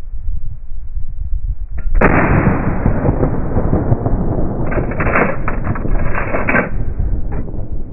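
A shotgun blast about two seconds in: a sudden onset and a long noisy trail. A second stretch of crackling noise follows from about five to six and a half seconds in, over a constant low rumble.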